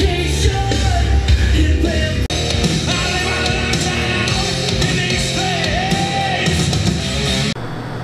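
Loud rock music with singing over heavy bass and drums, cutting off abruptly shortly before the end.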